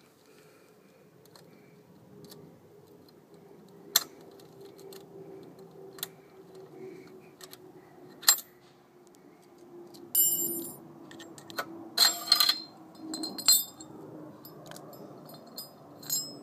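Sharp metal clicks of circlip pliers working the retaining circlip out of an Arrow Reflex exhaust outlet, then a run of ringing metallic clinks as the circlip and the perforated steel db-killer baffle come out and clatter together, with one more clink near the end.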